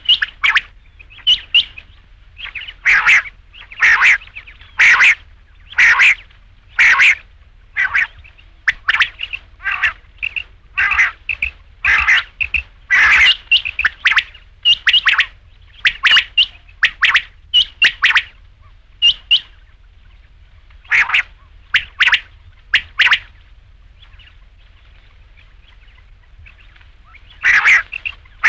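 Quail calling: short, sharp call notes repeated in quick runs about once or twice a second, pausing briefly about two-thirds of the way in and for about four seconds near the end.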